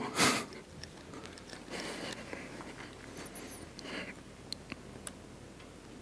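Quiet room tone through the presenter's microphone, with a short puff of noise at the start and a few faint clicks later on.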